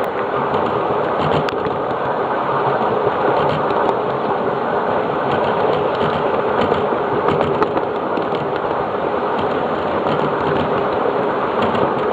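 Riding aboard a 7.5 inch gauge miniature train: the steady running noise of the locomotive and wheels on the track, with a few faint clicks.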